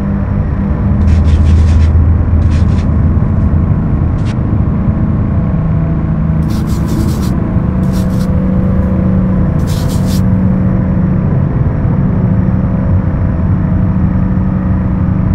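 Droning background music: a steady low hum of held tones, with brief bursts of hiss every few seconds.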